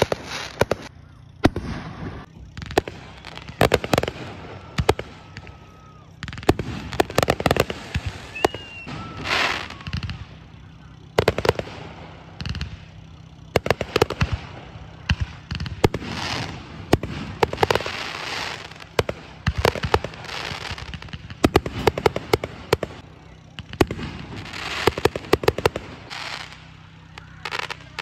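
Fireworks display: aerial shells bursting in repeated volleys of sharp bangs and crackles, a fresh cluster every two to three seconds with short lulls between.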